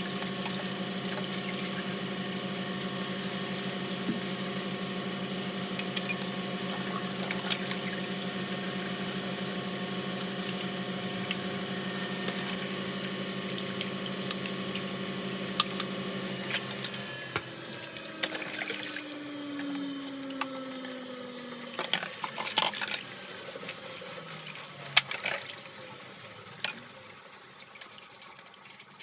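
Water running from a tap as vacuum cleaner filters are rinsed, with a steady hum in it. The water is shut off a little over halfway through, and then come drips and scattered clicks and knocks of plastic parts being handled.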